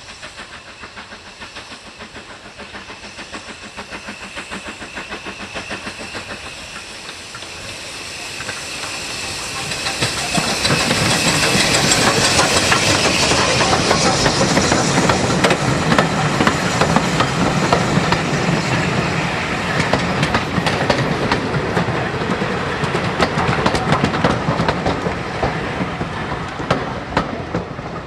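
Steam train passing close by, its wheels clicking over the rail joints with a steady hiss of steam, getting louder about ten seconds in and easing slightly near the end.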